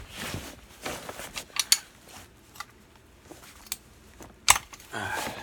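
Irregular metal clicks and scrapes of a socket wrench working a spark plug loose from a small two-stroke engine, with one sharp click about four and a half seconds in.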